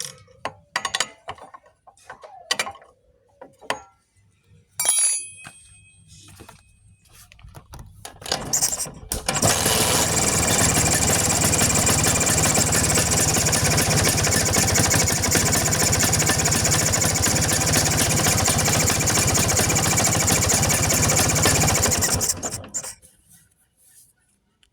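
A few clicks and knocks of hand tools on a Vespa scooter engine, then the engine is started about eight seconds in, runs steadily and loudly for about thirteen seconds, and is shut off. It is being run to check a strange noise traced to the carburettor area, which the mechanic suspects is a leak there.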